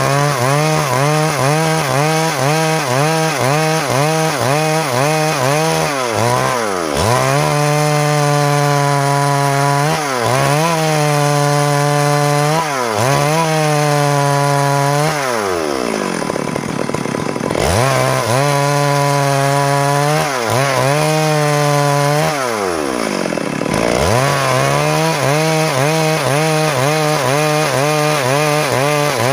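Stihl MS 382 two-stroke chainsaw running at full throttle as it cuts into a log, its engine note held steady under load. Several times the engine speed drops and then climbs back up as the throttle is eased and reopened in the cut.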